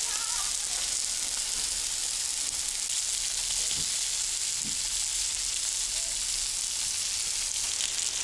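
Marinated fillets sizzling steadily on the hot griddle plate of a portable grill: an even, high frying hiss that does not let up.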